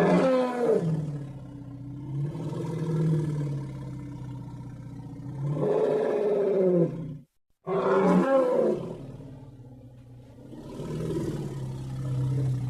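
Triceratops roar sound effect: two long, deep, pitched roars. Each starts loud, fades and swells again, and the first stops abruptly about seven seconds in, with the second following after a brief gap.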